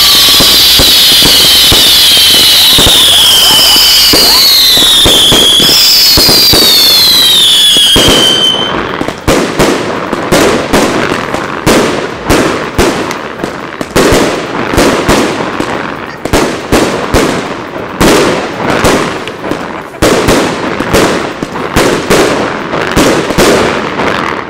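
Daytime fireworks: several loud whistles gliding up and down in pitch over a hiss of sparks. About eight seconds in, these give way to a string of sharp bangs, roughly one a second, each trailing off.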